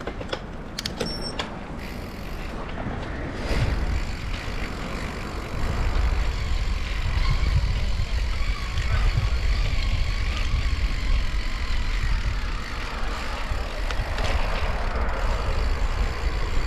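Steady low rumble of a vehicle under way, with wind noise on the camera microphone, growing louder a few seconds in as the ride picks up speed; a few sharp clicks right at the start.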